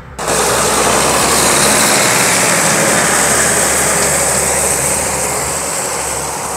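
Belarus MTZ-1221 tractor's six-cylinder diesel running steadily under load as its mounted SKIF-4.8 cultivator's tines tear through dry soil, with a dense steady hiss over the engine. The sound cuts in suddenly just after the start.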